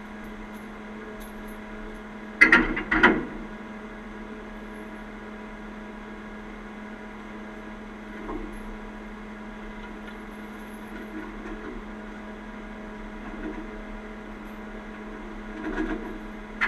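Heavy tow chain clanking twice against steel, about two and a half and three seconds in, while a steady mechanical hum from the idling trucks runs underneath.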